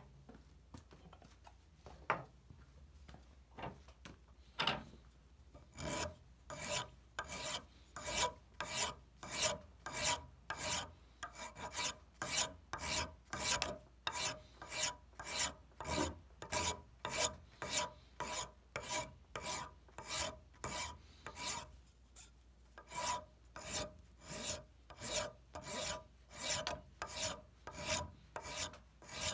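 Hickory hammer handle being hand-sanded with an abrasive strip pulled back and forth around it, shoeshine-style: even scratching strokes, a little under two a second, starting about six seconds in and pausing briefly about two-thirds of the way through. Before the strokes start there are a couple of single light knocks.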